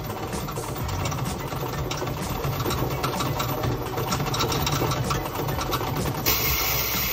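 Bank coin-counting deposit machine running, its motor humming steadily while coins rattle and click through the sorter as they are counted. About six seconds in, a steady hiss joins in.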